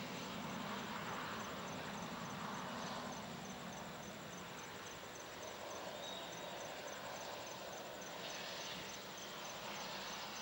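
Distant steady engine noise of a Dassault Falcon 7X business jet rolling along the runway, easing slightly midway and rising again near the end. Throughout, insects chirp in a steady rapid high-pitched pulse.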